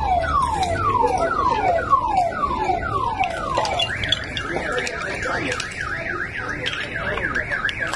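Car alarm sounding: a string of falling whoops, about two a second, that switches about four seconds in to a fast up-and-down warble.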